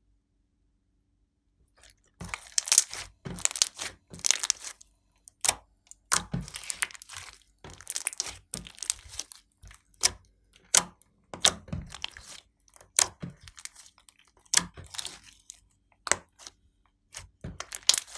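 Glossy slime being pressed, stretched and folded by hand, making sticky clicks, pops and crackles in irregular bursts after about two seconds of silence.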